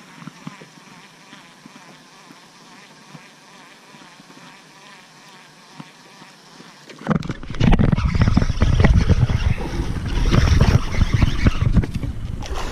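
A quiet stretch with a few faint ticks from a baitcasting reel being cranked. About seven seconds in, a sudden loud, rumbling, rustling noise on the microphone starts and keeps going as a bass is hooked and fought.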